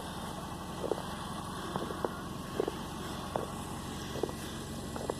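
Footsteps crunching in fresh snow, short and regular at about one step a second, over a steady low rumble.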